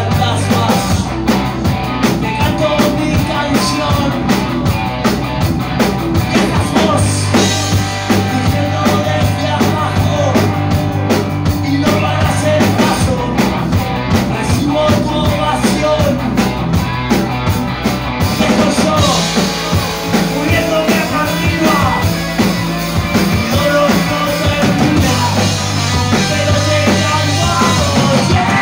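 Live rock band playing loud: electric guitars, bass and drum kit, with a singer. The low bass drops away for a few seconds after the midpoint, then comes back in.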